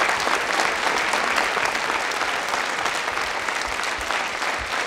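A theatre audience and the cast on stage applauding: dense, steady clapping that eases off slightly.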